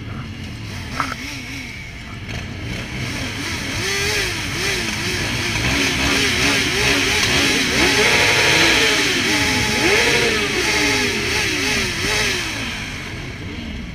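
Several motorcycle engines revving in short, repeated throttle blips that overlap one another, swelling louder through the middle and easing off near the end.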